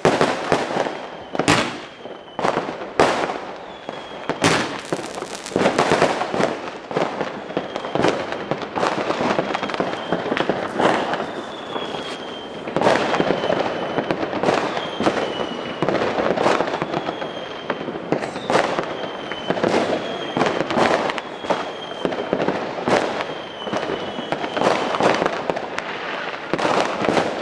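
New Year's Eve fireworks going off in a dense, continuous run of sharp bangs and crackling, with short high whistles dipping slightly in pitch, repeated many times.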